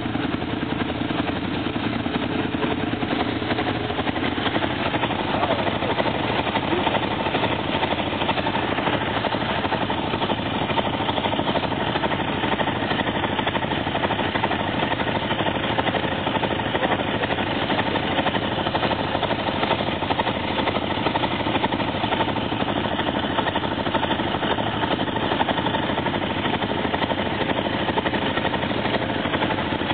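ATV (quad bike) engine running steadily close by, with no revving.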